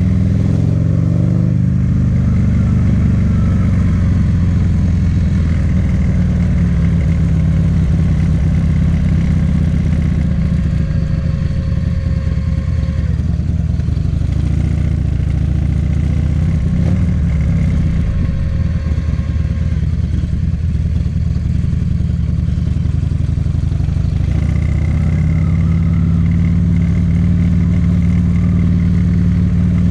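Buell XB12Ss's air-cooled V-twin through a Jardine exhaust, running under way; the engine note drops about a second in, wavers in the middle and climbs again near the end as the throttle changes.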